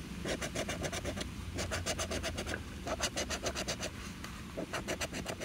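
A round scratcher tool scraping the coating off a scratch-off lottery ticket in fast back-and-forth strokes, several a second, in short runs with brief pauses between them.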